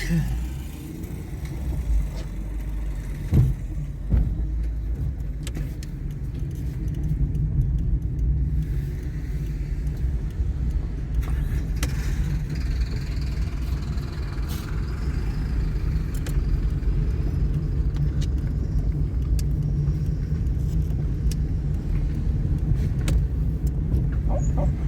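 Steady low rumble of a car driving along, with a couple of short knocks or rattles about three and four seconds in.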